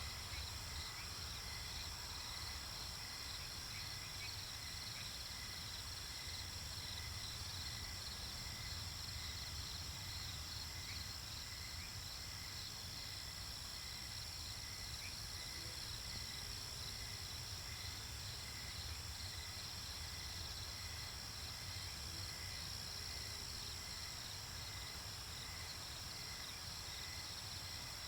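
Night-time nature ambience of crickets chirping steadily: a continuous high trill with rapid pulsed chirps, over a low steady rumble.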